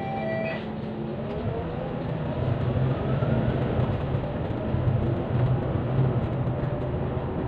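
City bus pulling away from a stop. Its engine and drivetrain rise in pitch as it accelerates, with a whine climbing over a couple of seconds and the low rumble growing louder. A steady electronic tone cuts off about half a second in.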